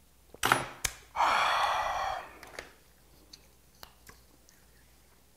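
A loud, breathy, satisfied "ahh" exhale lasting about a second, right after a swallow of makgeolli, preceded by two short smacks or clicks. Faint clicks of whelk shells being handled follow.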